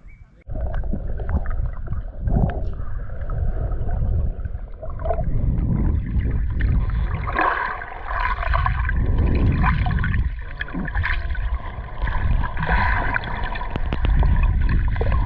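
Water sloshing and gurgling close to the microphone, with heavy low rumbling and scattered knocks, starting suddenly about half a second in.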